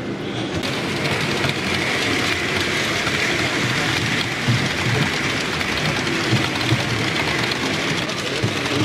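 HO-scale model train running past on the layout, a steady rolling hum of its motor and wheels on the track, over the murmur of a crowded exhibition hall.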